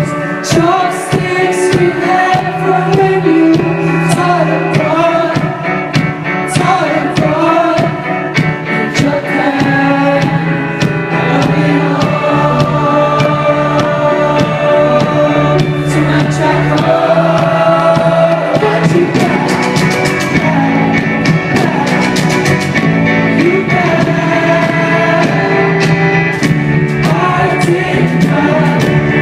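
Indie rock band playing live, loud: several voices singing in harmony over guitars, bass and drums.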